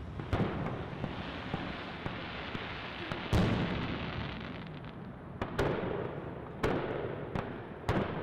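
Aerial fireworks going off: about five sharp bangs, the loudest about three seconds in, each trailing off, over a steady hiss from the burning effects.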